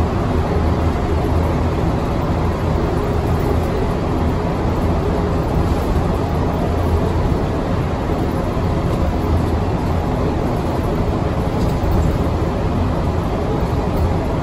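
City bus engine and road noise heard from inside the cabin, a steady low drone as the bus runs along without stopping.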